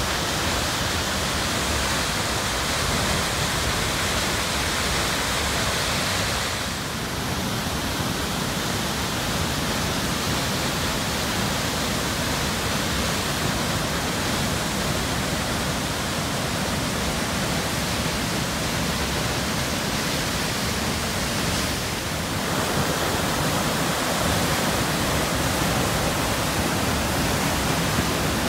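Stanley Falls, a waterfall plunging into a narrow rock gorge with whitewater churning below: a loud, steady rushing of water that dips briefly about seven seconds in and again near twenty-two seconds.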